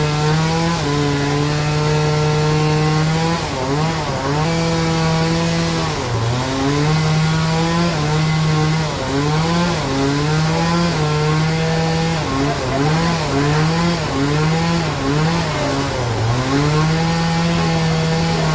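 Sawmill bandsaw cutting into a large log, its drive running loud with a steady tone whose pitch sags and recovers again and again as the cut loads it.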